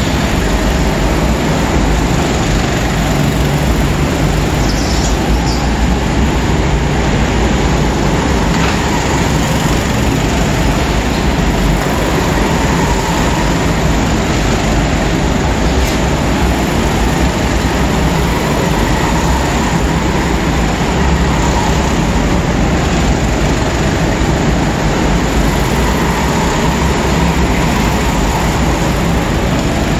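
Several racing go-karts lapping an indoor track: a continuous, loud mechanical drone of karts running together, with no single pass standing out.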